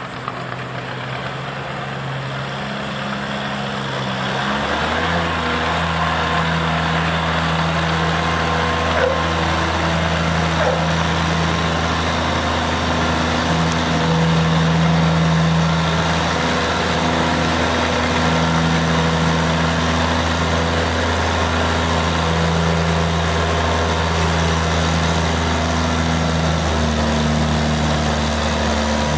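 Oliver row-crop tractor engine working under load as it pulls a weighted sled. The engine grows louder about four seconds in and then runs steadily.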